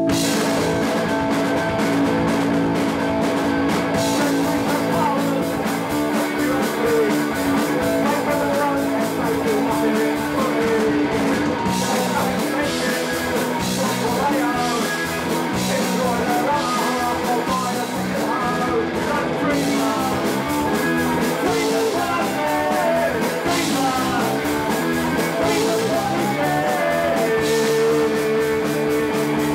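Punk rock band playing live: electric guitar, bass guitar and drum kit.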